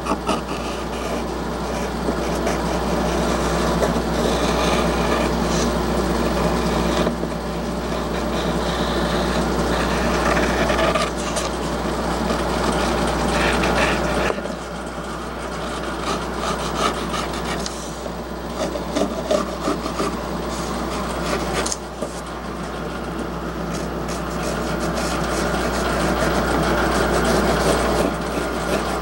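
Scroll saw running and cutting 1/4 inch plywood: a steady motor hum under the rasp of the blade in the wood. The sound jumps abruptly in level several times.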